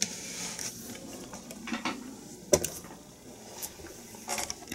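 A few sharp clicks and knocks with light rustling as a hand handles a laptop on a wooden desk; the loudest knock comes about two and a half seconds in.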